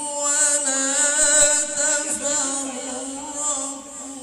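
A male Quran reciter's voice in melodic tilawah, through a microphone and loudspeakers, holding a long drawn-out note with rapid wavering ornaments. It fades near the end.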